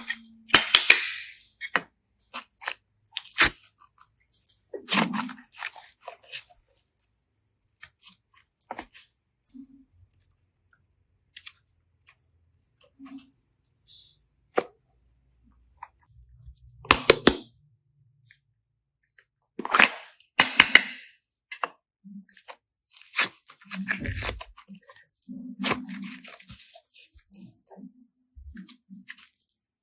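Close-up handling noises: irregular crunching, crackling and tearing sounds with sharp clicks, in scattered bursts that are loudest about a second in and again from about 17 to 26 seconds.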